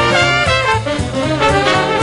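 Instrumental swing-style music with brass over a bass line that steps from note to note.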